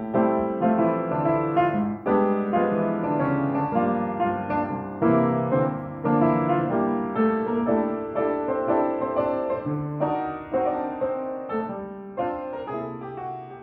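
Background piano music playing a flowing melody over chords, getting quieter near the end.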